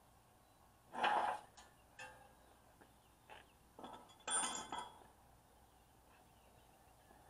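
Metal hand tools clinking and clanking against each other and against steel, a handful of separate knocks, the loudest about a second in and about four seconds in.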